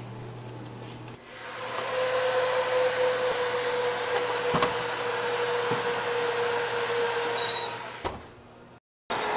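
Convection oven fan running with a steady hum while the oven door stands open; a metal baking tray clinks twice as it goes onto the rack. Near the end the oven door shuts with a knock and the fan sound dies down.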